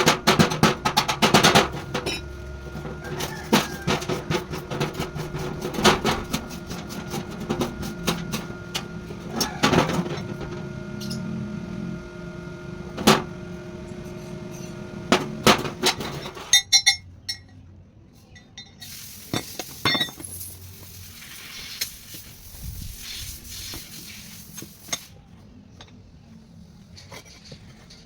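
Many sharp metallic clinks and knocks over steady tones for about the first half, then quieter, with scattered clicks and a hiss lasting several seconds.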